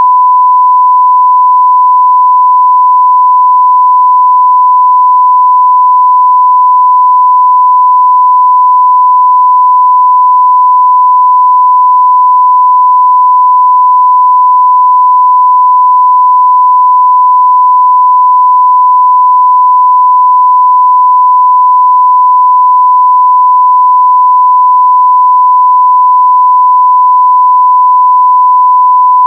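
One steady electronic beep tone held at a single pitch without a break or change, like a test tone.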